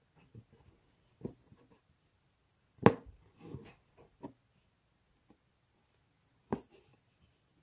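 Hand-embroidery handling sounds: needle and embroidery thread drawn through fabric held taut in a wooden hoop, and fingers rubbing the fabric, as soft scattered scratches. Two sharper taps stand out, one about three seconds in and one near the end.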